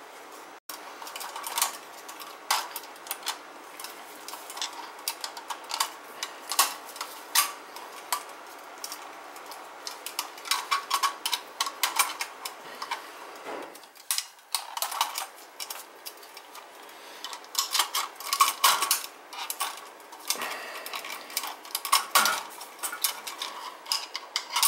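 Irregular clicks and small metallic taps of a screwdriver and wires working the terminals inside a boiler's metal control box, a few to several a second, with short pauses.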